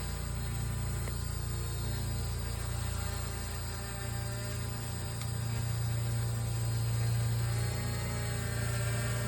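Small camera drone's electric motors and propellers humming steadily, with a strong low hum and many higher tones above it that waver slightly.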